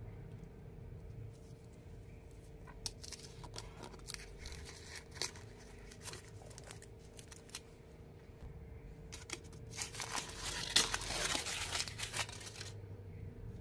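Thin red foil wrapper being peeled off a heart-shaped chocolate lollipop: scattered crinkles at first, then a dense run of foil crinkling and tearing for about three seconds near the end, which stops suddenly.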